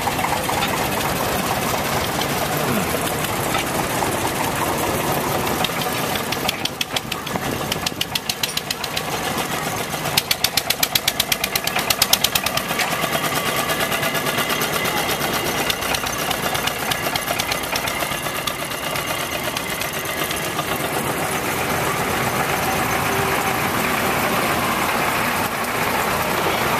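Small narrow-gauge diesel locomotive engines running, with a louder, rhythmic knocking chug for a few seconds about ten seconds in.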